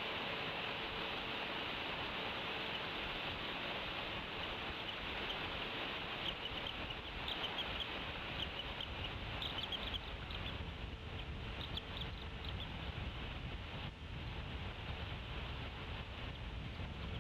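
Bald eagle hatchlings peeping, a run of short, high chirps from about six seconds in until about thirteen seconds, over a steady outdoor hiss.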